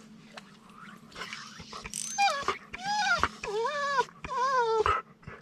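A dog whining: a few soft clicks and rustles, then from about two seconds in a run of four high whines, each rising and then falling in pitch.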